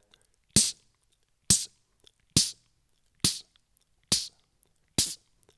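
Beatboxed snare drum: a sharp 'tchh' made with the mouth, repeated six times at an even pace, about one a second.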